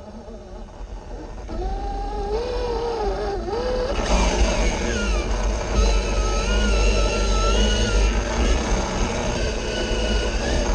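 Axial SCX6 RC rock crawler's electric motor and geartrain whining, the pitch rising and falling as the throttle changes while it climbs over rock, over a steady low rumble.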